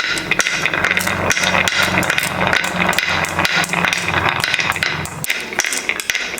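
Rapid clattering of small hard toys running down a marble-run slope track: many quick clicks and knocks, with a low hum underneath that stops about five seconds in.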